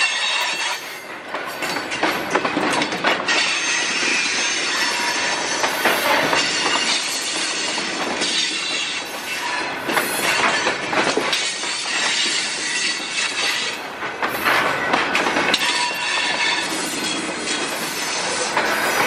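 Freight train cars rolling past: a loud, steady rolling noise with repeated clicks as the steel wheels cross rail joints, and a faint high squeal from the wheels.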